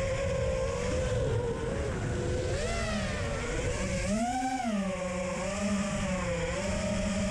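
Eachine Wizard X220 racing quadcopter's brushless 2205 2300KV motors and propellers whining, the pitch rising and falling with the throttle, with the biggest surge about four seconds in. A low rumbling noise runs underneath.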